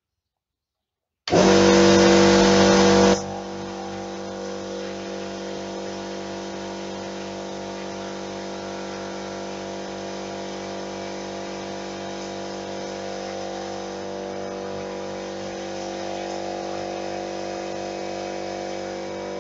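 Air Power HP25 air compressor starting up after being reassembled: about a second in it starts loud for roughly two seconds, then settles into a steady running hum. The motor starting and running shows that the repaired compressor, suspected of a dead start capacitor, now works.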